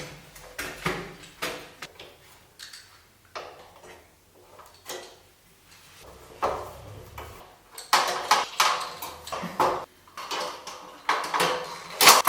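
Irregular knocks, clicks and clatter of a fluorescent light fitting being taken down, busiest in the second half.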